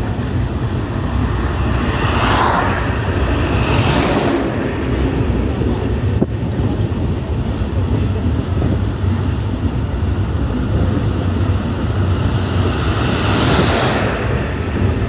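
Steady low rumble and wind noise of a moving vehicle, heard from inside at an open window. Whooshes of passing traffic swell and fade about two and four seconds in and again near the end.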